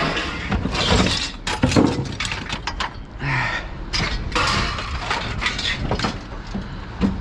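Broken glass from the truck's shattered rear window clinking and crunching, with many quick clattering knocks in bunches.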